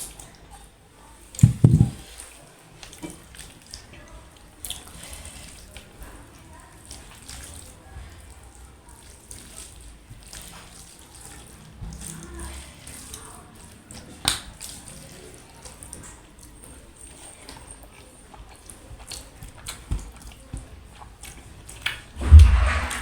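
Close-miked eating of a mutton curry meal with rice and dal: soft mouth sounds and scattered small clicks of food and utensils. Two low thumps stand out, one about a second and a half in and a louder one near the end.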